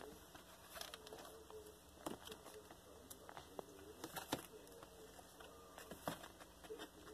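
Month-old Highlander kittens scampering and wrestling on soft blankets and bedding: faint, irregular scuffles and soft pats, with a few sharper taps, the loudest about four seconds in.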